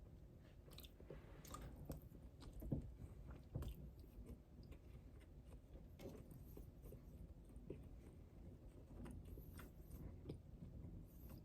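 Faint chewing: a person eating with their mouth close to the microphone, making soft, irregular clicks.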